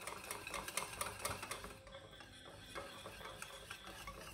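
Wire whisk beating runny batter in a bowl: quick, faint, irregular ticks of the wires against the bowl over a soft wet stirring.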